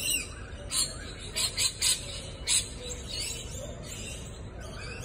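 A handful of short, high-pitched animal squeaks and chirps, bunched in the first half, over a steady low background rumble.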